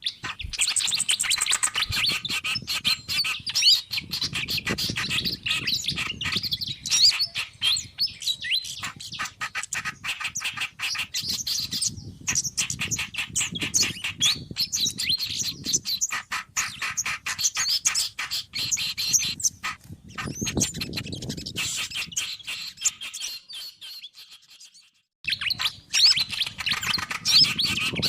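Bird-lure recording of mixed small songbird calls: dense, rapid chirping and twittering. It cuts out briefly near the end, then starts again.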